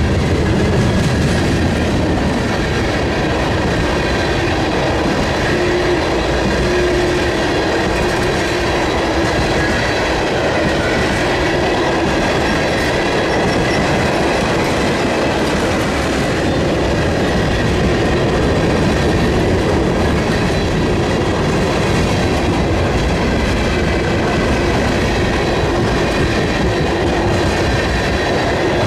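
Freight train cars rolling past at close range: a steady rumble and clatter of steel wheels over the rail joints, with a faint steady squeal from the wheels.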